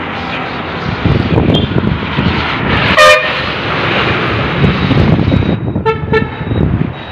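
Street traffic noise with a vehicle horn giving one short toot about three seconds in, then two quick beeps near the end.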